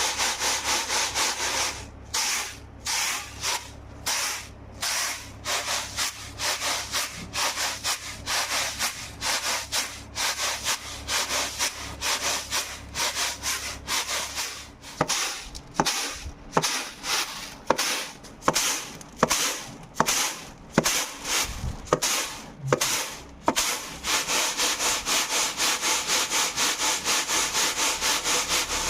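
Horse gram seeds being winnowed in a winnowing basket: rhythmic swishing, rattling strokes as the seeds are tossed and shaken, about two to three a second, with sharper taps through the middle stretch.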